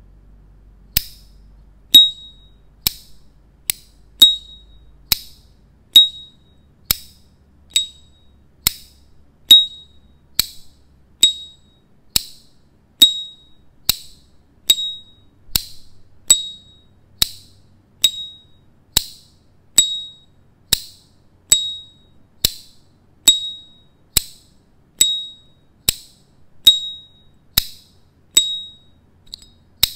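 Gold brushed S.T. Dupont Ligne 2 lighter's lid flicked open and snapped shut over and over, about once a second. Each stroke is a sharp metallic click, and most carry the lighter's bright, short ringing "ping".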